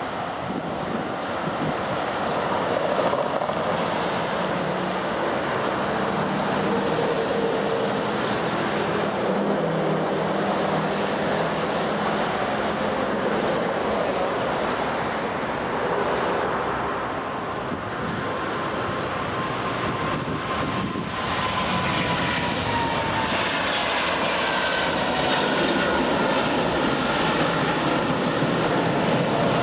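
Jet airliner engines: a steady, loud rush of engine noise, with a whine falling in pitch from about twenty seconds in.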